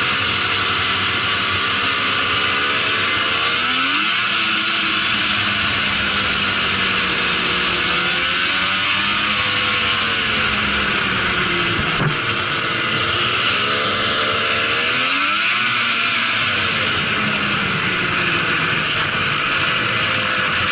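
Arctic Cat 800 triple snowmobile's three-cylinder two-stroke engine running while under way, its revs rising and falling several times, with a steady hiss over it. A single sharp click sounds about twelve seconds in.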